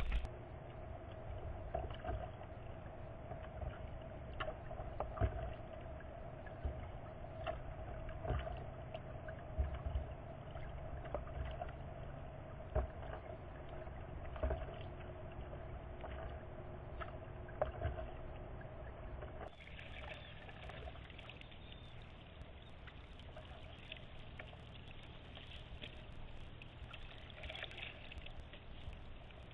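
Water splashing and lapping against a kayak hull as it is paddled, with scattered knocks and a steady faint hum underneath. About two-thirds in, the sound changes abruptly to a quieter trickle of water.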